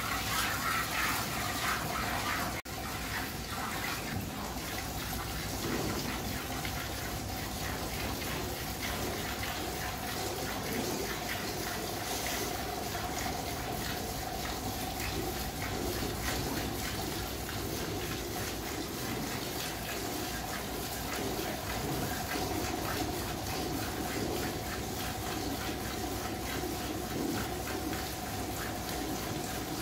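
Milk squirting from a cow's teats into a metal bucket during hand milking, a steady, unbroken run of squirts.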